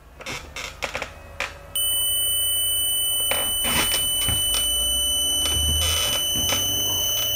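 An electric motor run from a ZW-CT1 variable-frequency drive starts up about two seconds in with a steady, high-pitched whine from the drive's switching. It is ramping up slowly toward 50 Hz on the drive's preset acceleration of about 15 seconds. A few clicks and knocks are heard over it.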